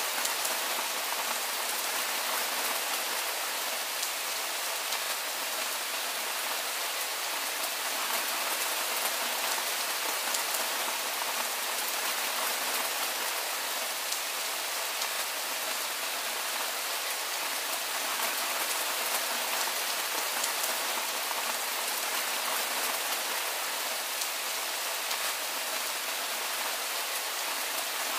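Steady rain falling: an even hiss with faint drop ticks scattered through it.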